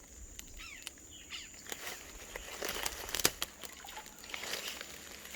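Rural outdoor ambience: a bird chirps a few short falling notes near the start over a steady high insect drone, with scattered crackles and rustles, the sharpest about three seconds in.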